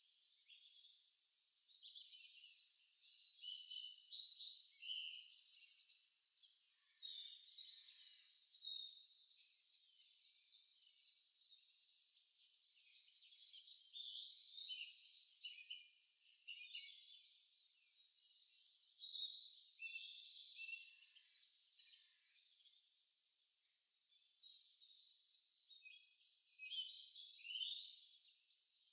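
High-pitched nature ambience of chirping and trilling, with a short, high, falling chirp repeating about every two and a half seconds.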